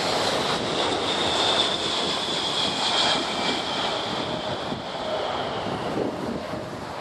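Boeing 747-400's four turbofan engines on final approach: a steady jet rush with a high whine that slowly falls in pitch and fades as the airliner flares toward touchdown.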